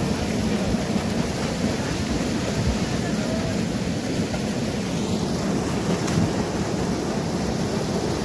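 Small waterfall pouring into a stream pool: a loud, steady rush of churning water that does not let up.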